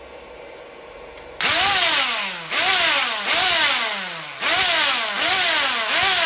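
Knockoff 'Bosch' angle grinder running with no disc, switched on in six short bursts starting about a second and a half in. Each time it whines up to speed and winds down with a falling pitch. It sounds noisy and off, which the owner puts down to its cooling fan being cracked.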